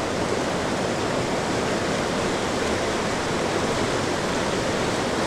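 Mountain stream water rushing over rocks, a steady, even roar.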